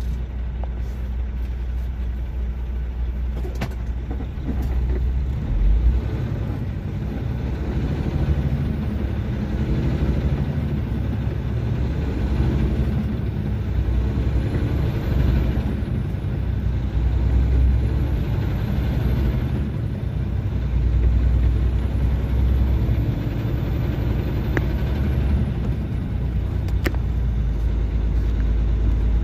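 Semi truck's diesel engine and road noise heard from inside the cab: a steady low rumble that swells and eases as the truck pulls away from the intersection and gets up to speed.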